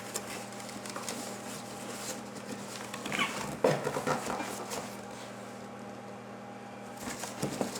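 A cardboard shipping box being cut open with a knife and handled: scattered small clicks, scrapes and rustles. A brief squeak comes about three and a half seconds in.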